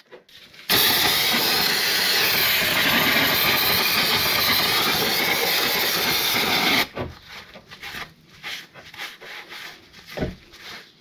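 Aerosol spray can of cleaner spraying in one continuous loud hiss for about six seconds, cutting off abruptly, as the oily crankshaft end is degreased. Then a rag rubbing and wiping with scattered light scrubbing sounds.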